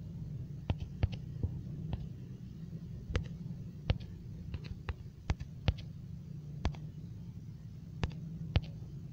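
Irregular, sharp taps of slow typing on a smartphone's on-screen keyboard, over a steady low hum.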